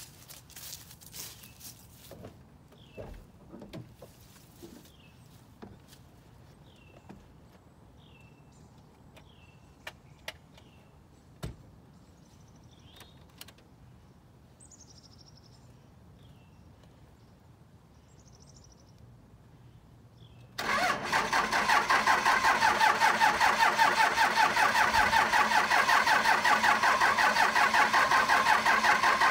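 1995 Dodge Ram's 12-valve Cummins 5.9-litre inline-six turbo diesel cold-starting about two-thirds of the way in: it catches at once and runs loud and steady with a fast, even beat. Before the start it is quiet, with footsteps, a click and a bird chirping over and over.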